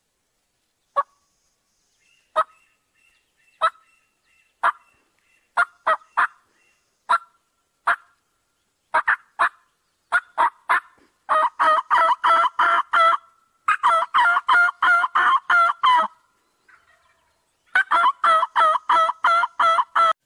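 Hen turkey calling: sharp single clucks about a second apart that come faster, then three long runs of rapid yelping, the loudest near the end.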